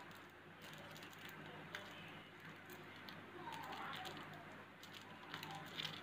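Faint rustling and light clicks of hands handling a sand-painting card and small plastic packets of coloured sand, over a steady low hum.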